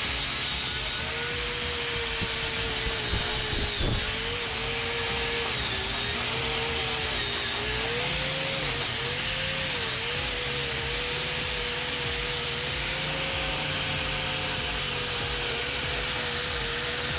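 Power wire brush scrubbing fresh welds on a steel radius rod to strip the paint the welding heat burned. The motor whines steadily, its pitch sagging and recovering as the brush is pressed into the metal, over a constant harsh scrubbing hiss.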